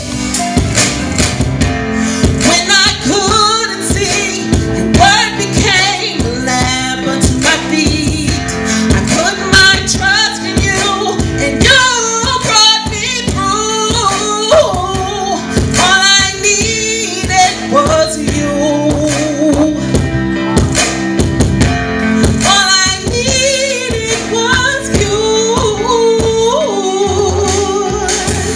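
A woman singing a gospel song into a microphone over instrumental accompaniment with a steady beat, her voice wavering with vibrato on held notes.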